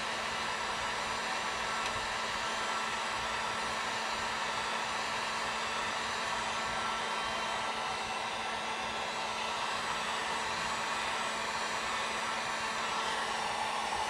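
Drill Master electric heat gun running steadily, blowing hot air to shrink heat-shrink tubing over soldered wire splices: a constant whir with a low hum.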